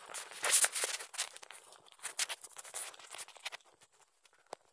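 Footsteps crunching on a dirt-and-gravel track, mixed with scraping and rubbing of the phone as it is carried, a run of irregular crunches that thin out and nearly stop near the end.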